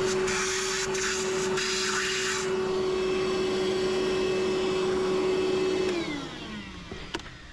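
Vacuum cleaner running while it sucks up steel filings, with a strong rush of air for the first two and a half seconds over a steady motor hum. It is switched off about six seconds in and the motor winds down, falling in pitch.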